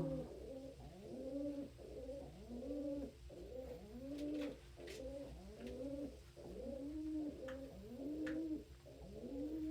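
Domestic pigeons cooing, a steady run of low rising-and-falling coos about one a second.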